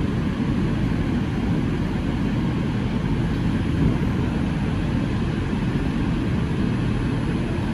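Bombardier R142 subway car running along the track, heard from inside the car: a steady low rumble of wheels on rails with no clear tones or breaks.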